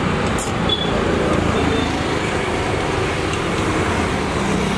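Steady roadside background noise: traffic running by, with faint chatter of voices.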